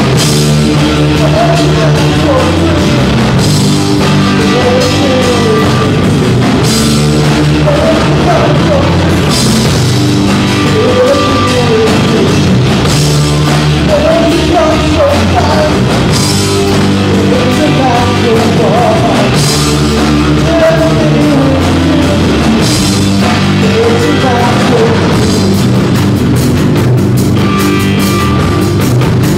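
Rock band playing live: distorted electric guitars and a drum kit at a steady beat, with a lead singer's voice over the top.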